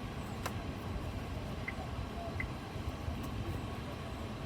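Low, steady vehicle rumble heard inside a car cabin, with a faint click about half a second in and two faint short tones.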